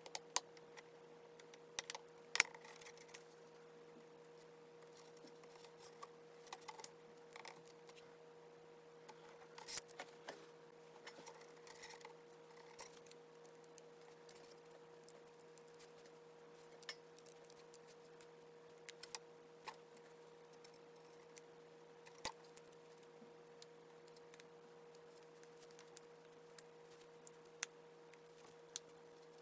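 Scattered small clicks and taps from tools and fingertips handling an iPhone 7 during reassembly, as screws go in and the display is pressed onto the frame. A faint steady hum runs underneath.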